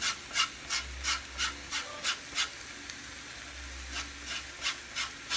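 A lime being zested on a flat metal hand grater, rasping in short even strokes about three a second, with a break of about a second and a half midway before the strokes resume.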